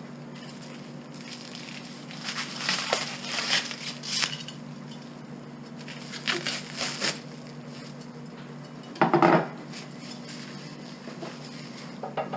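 Wrapping being cut and pulled off a new sifter handle: irregular crinkling and rustling bursts about two seconds and six seconds in, and a louder short crackling burst about nine seconds in.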